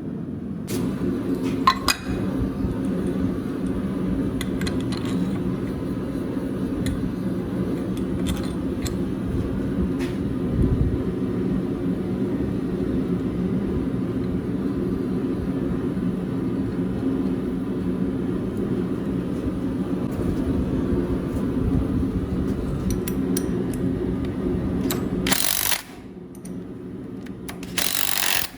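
A steady machine hum in a blacksmith's shop, with a few light metal clinks and clicks; the hum drops away near the end, followed by two short bursts of hissing noise.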